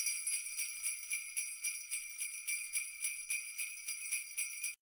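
Jingle bells shaken in a steady rhythm, about four shakes a second, cutting off suddenly near the end.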